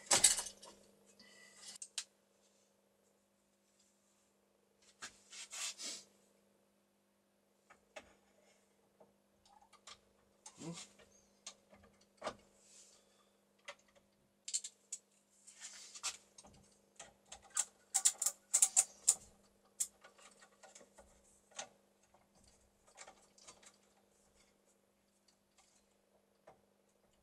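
Scattered clicks, knocks and light rattles of a steel bipod being fitted onto an airsoft Barrett M82A1 replica rifle. The clicks come thickest about two-thirds of the way in.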